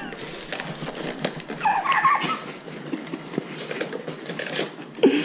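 Cardboard collector's box and its card-stock insert being handled and pulled apart: scattered taps, rubs and scrapes of cardboard. A brief high-pitched, wavering vocal sound comes about two seconds in.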